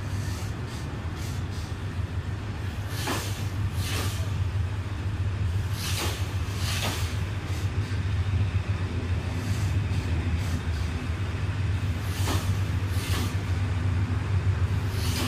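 Passenger coaches of a departing diesel-hauled express train rolling slowly past on the rails, with a steady low rumble that grows a little louder as the train gathers speed. Sharp wheel clacks come in pairs every few seconds as the bogies cross rail joints.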